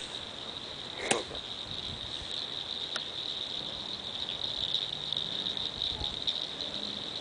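Crickets chirring steadily, with a couple of faint clicks, one about a second in and another around three seconds.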